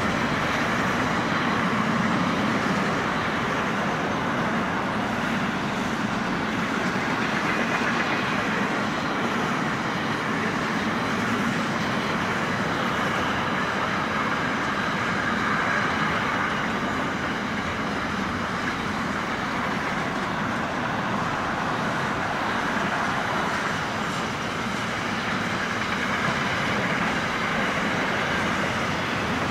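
Container wagons of a long freight train rolling past at speed: the steady noise of steel wheels running on the rails.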